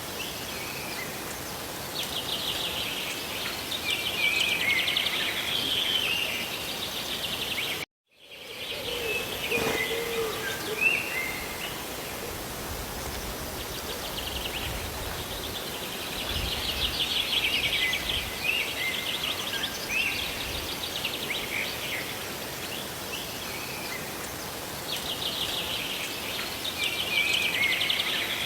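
Steady hiss of rain and falling water with birds chirping and trilling over it in repeated spells. The sound cuts out abruptly for a moment about eight seconds in.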